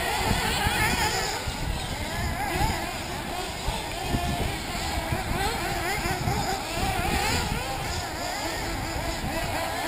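Several 1/8-scale nitro RC buggy engines racing at once, their pitch rising and falling over and over as they rev up and down around the track.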